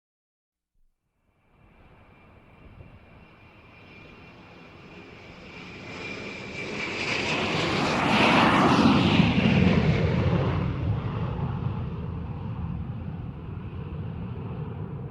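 Airplane flying past: it fades in with a high whine, grows to its loudest about eight to nine seconds in, then slowly recedes.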